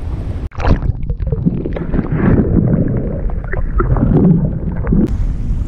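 Water sloshing and bubbling heard through an action camera dunked underwater, muffled from about half a second in. About five seconds in, the camera comes back out into open-air wind and wave noise.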